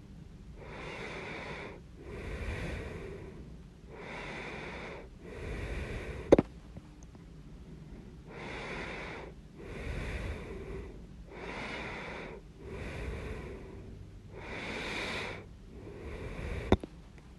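A person with hiccups breathing slowly in and out, about five breaths. Breathing is broken twice by a sharp, loud hiccup: once about six seconds in, right at the end of a breath in, and again near the end.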